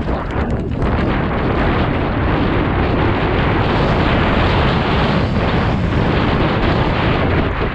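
Loud wind buffeting on the microphone of a helmet camera, mixed with the tyre rumble and rattle of a downhill mountain bike riding fast down a dirt trail.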